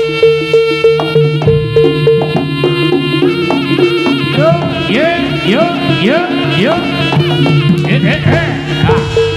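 Javanese jaranan senterewe music: a gamelan-style ensemble with drums keeping a steady pulsing beat and a reed melody, with a run of repeated rising swoops in the middle.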